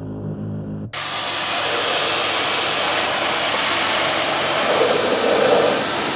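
A machine motor hums briefly, then about a second in a high-pressure jet cuts in with a loud, steady hiss, blasting road grime out of the car's wheel arch.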